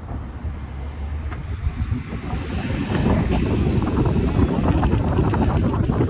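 Wind buffeting a phone microphone in a moving car, over the low rumble of the car. The buffeting grows louder from about two seconds in.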